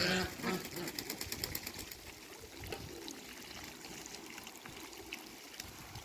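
Small wet splashes and quick bill clicks from a flock of Muscovy ducks and geese dabbling in a shallow puddle, louder in the first couple of seconds and then fainter and steady.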